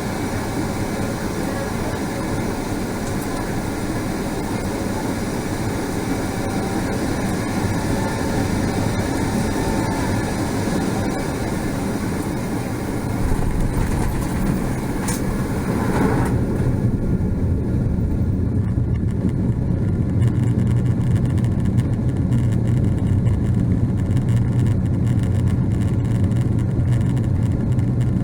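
Steady rumble of a Boeing 777-200ER's engines and airflow heard from inside the cabin. About 13 seconds in it grows louder, and a few seconds later it turns into a duller, lower rumble with a strong low hum.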